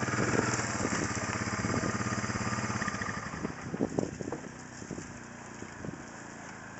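A vehicle engine idling with a fast, even pulse, fading out about three seconds in. A few short knocks follow near the middle.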